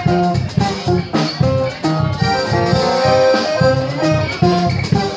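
Accordion and strummed guitar playing an instrumental break together, the accordion holding and changing melody notes over a steady strummed rhythm.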